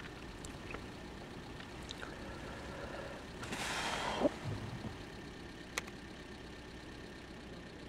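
Steady low running noise of a car heard from inside the cabin while driving. About halfway through there is a short rustling swell, and a sharp click comes a little later.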